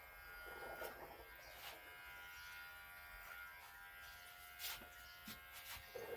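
Electric hair clippers running with a faint, steady buzz, with a few short clicks in between.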